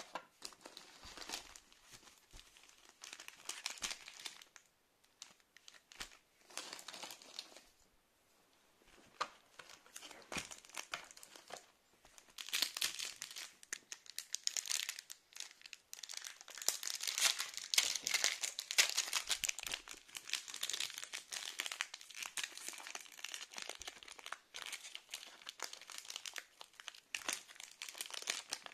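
Foil wrappers of counterfeit Pokémon Sun & Moon booster packs crinkling and tearing as they are handled and opened. The crackling comes in uneven bursts, thins out about eight seconds in, and is loudest and busiest through the middle stretch.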